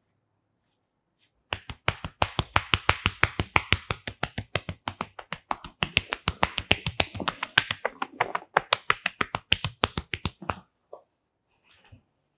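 Percussive massage: a masseuse's hands rhythmically tapping and clapping on a client's towel-covered head and neck, a fast even run of crisp pops at about seven a second. It starts a second and a half in and stops about a second before the end.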